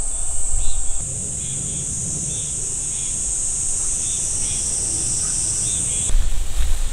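Insects calling in a steady, high-pitched drone, with faint chirps above the hum of the countryside. The drone cuts off suddenly about a second before the end, where wind rumble on the microphone takes over.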